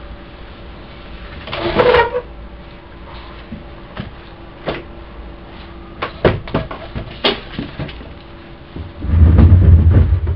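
A few scattered knocks and clicks, then about nine seconds in a wooden under-bed drawer is pulled open across a tiled floor with a loud, low scraping slide.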